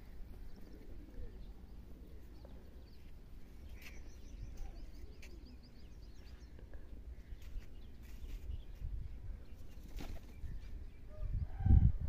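Outdoor ambience: a steady low rumble with faint scattered bird chirps, including a quick run of high chirps about four seconds in. A loud low thump comes near the end.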